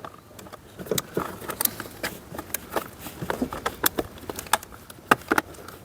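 Irregular sharp plastic clicks and taps, several a second, as a courtesy light is pushed and clipped back into a Ford Galaxy's interior door trim panel.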